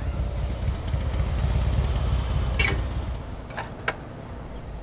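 Harley-Davidson V-twin motorcycle engine running at low revs, loud for about three seconds and then quieter. Midway there is a short falling squeak, followed about a second later by two sharp clicks.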